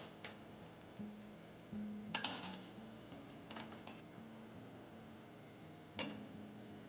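A few light, sharp clicks and knocks, a small cluster of them about two seconds in and a single one near the end, over faint music.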